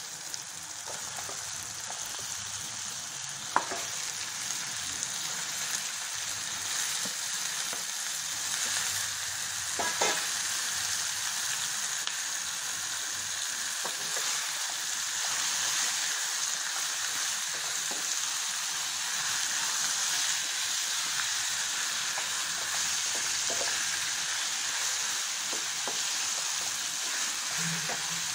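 Onions, tomatoes and curry leaves sizzling in hot oil in a non-stick kadai, with raw chicken pieces added and stirred in with a wooden spatula. The steady sizzle slowly grows louder, with two sharp knocks, about three and a half and ten seconds in.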